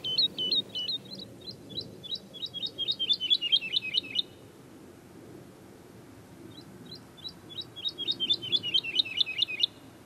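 Woodlark singing: two short, liquid phrases, each starting with spaced notes and accelerating into a fast run of downward-slurred notes. The first phrase ends about four seconds in, and the second begins about two seconds later.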